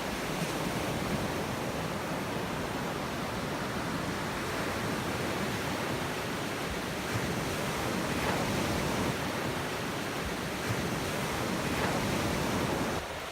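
Ocean surf breaking and washing onto a beach: a steady rush of choppy waves.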